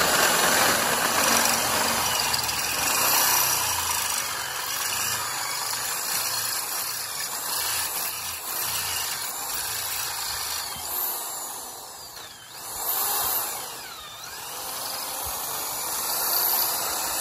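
Corded Ryobi electric drill running under load as a 3/8-inch bit bores out a pilot hole in a steel bracket. About twelve seconds in the drill briefly dies down, then picks back up.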